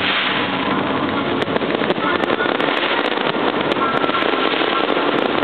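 Aerial fireworks going off in quick succession, a dense, steady crackle of many small bursts with no single standout bang.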